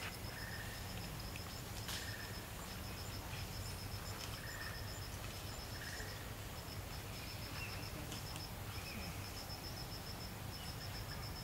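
Forest ambience dominated by an insect chirping in runs of rapid, evenly spaced high pulses, with a short lower call recurring every second or two and a steady low hum beneath.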